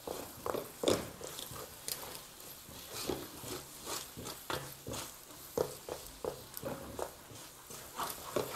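Wooden spoon working a thick, sticky starch-and-butter paste in a metal bowl: irregular squelches and scrapes, about one or two strokes a second.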